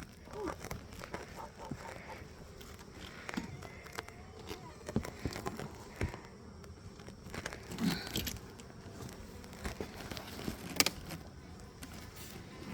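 Scattered knocks, clicks and scrapes of a wooden beehive box being handled and fitted back onto the hive, with one sharper knock near the end.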